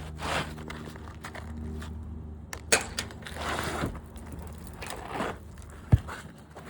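Asphalt shingles being pried loose and handled on a roof: scraping and crunching, with a sharp knock about six seconds in and a steady low hum underneath in the first half.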